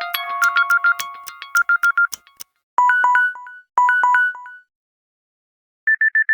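Samsung Gear S smartwatch alarm tone: a bright chiming melody of quick bell-like notes that ends about two seconds in. Two short three-note chime phrases follow, then a brief burst of rapid beeps near the end.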